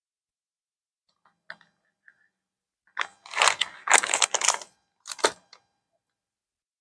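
Plastic bag of shredded cheese crinkling as it is handled and closed, in two rustling bursts, the first about three seconds in and lasting nearly two seconds, the second briefly about five seconds in, after a few faint clicks.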